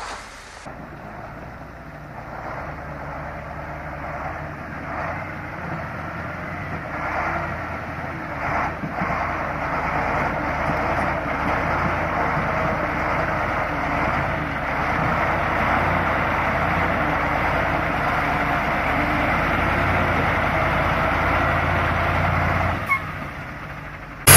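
Heavy truck's diesel engine running under load as the truck wades through icy river water, growing louder over the first ten seconds or so and then holding steady.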